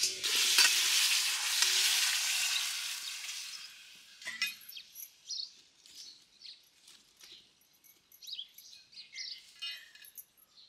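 Water poured from a steel tumbler into a hot steel kadai of drumstick pods frying in oil, hitting the hot oil with a loud sizzle that fades away over about four seconds. After that, only faint bird chirps and small clicks.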